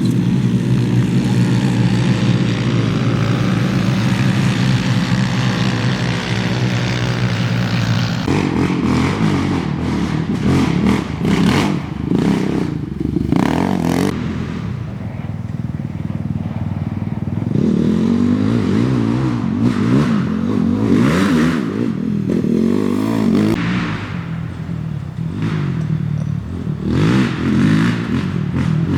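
Off-road race vehicle engines running and revving, the engine note rising and falling and changing abruptly from clip to clip, with scattered knocks and rattles.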